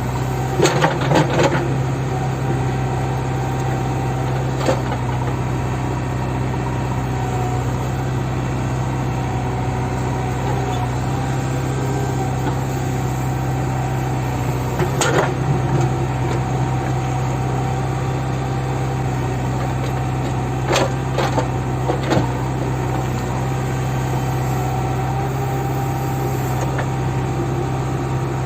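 JCB backhoe loader's diesel engine running steadily with a low hum, broken by a few short sharp knocks: a cluster near the start, one about five seconds in, more around the middle and a few past the two-thirds mark.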